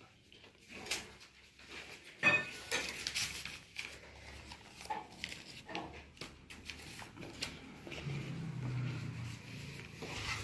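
Scattered small clicks and knocks of objects being handled, with one sharper knock about two seconds in and a faint low hum from about eight seconds in.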